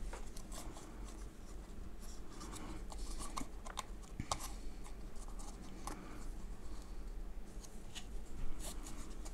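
Hands working the plastic monitor-mount clip of an Elgato Facecam MK.2 webcam, tilting its hinge and loosening it. The sound is soft scraping and rubbing with scattered small clicks.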